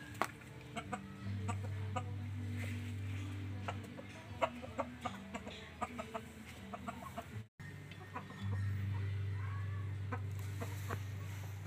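Domestic chickens clucking in short, sharp notes. A low steady hum sounds beneath them, starting about a second in, stopping near four seconds, and coming back for the last few seconds.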